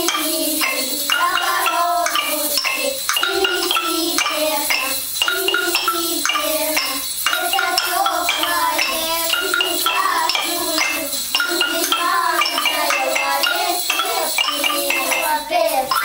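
A group of young children chanting or singing a rhyme together, with light taps of mallet percussion underneath.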